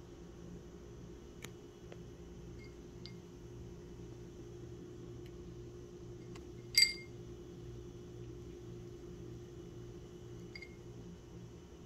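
Ice cube clinking against the inside of a small ceramic water bowl as a cat paws at it: a few faint clinks, then one sharp, ringing clink about seven seconds in. A low steady hum runs underneath.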